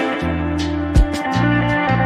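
Background music: guitar over a steady bass line, with drum thumps about a second apart.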